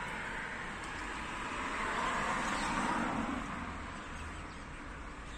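A road vehicle passing by: a smooth rushing noise that swells about two seconds in and fades again.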